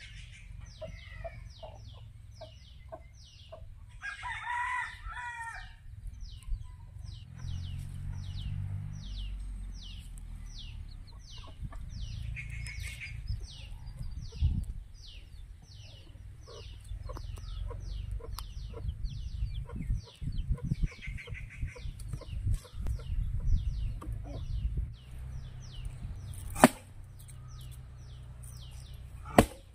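Chickens: a rooster crows about four seconds in and hens cluck, over a high chirp repeating about twice a second. Near the end, two sharp blows of an axe into a log, the first the loudest sound.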